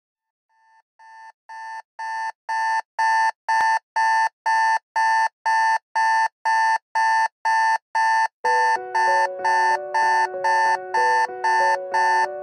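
Digital alarm clock beeping a little over twice a second, fading in and growing louder over the first few seconds. From about eight and a half seconds in, music with sustained lower notes comes in underneath the beeps.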